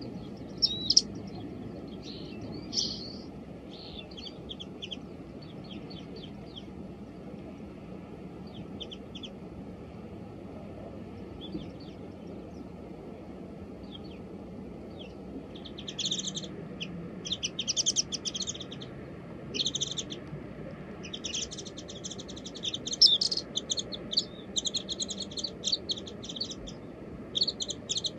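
Small wild songbirds calling: scattered short high chirps at first, then from about halfway a dense run of rapid chirping in repeated bursts.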